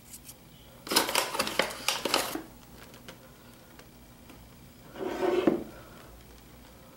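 Flour being sprinkled and spread by hand over a wooden work table: dry rustling and light taps lasting about a second and a half, then a shorter rub about five seconds in.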